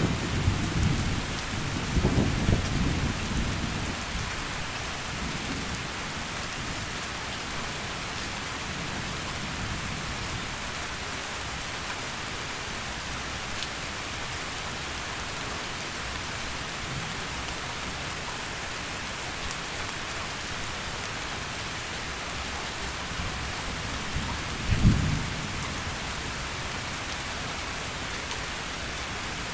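Heavy steady rain. Thunder rumbles at the start and dies away within a few seconds, and a short, loud low thunderclap comes near the end.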